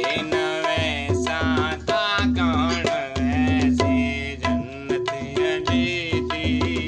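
A man singing a folk song while playing a pair of waist-slung hand drums. Ringing higher drum strokes and deep bass beats keep a rhythm under a sung line that bends in pitch.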